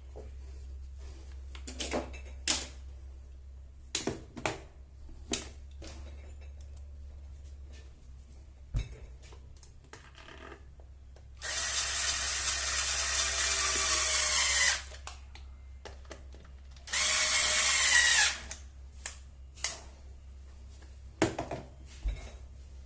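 Power drill driving the screws that fix a wall socket to its box: two runs, about three seconds and then just over a second, the motor pitch dropping as each screw tightens. Scattered clicks and knocks of handling the socket and screws come in between.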